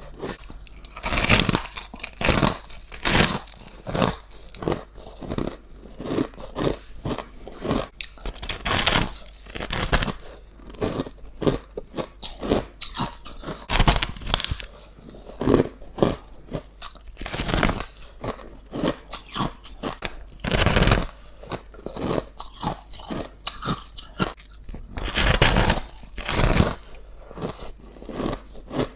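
A person biting into and chewing ice, with sharp, irregular crunches and crackles coming in quick clusters throughout.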